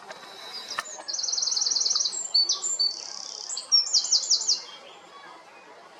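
A small songbird singing one loud, high, fast song of about four seconds: a rapid trill of repeated notes, then a few varied notes, then a second quick rolling trill before it stops. A single sharp click comes just before the song starts.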